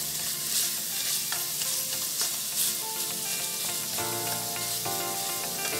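Ground beef sizzling steadily in a hot frying pan while a silicone spatula stirs and scrapes it around.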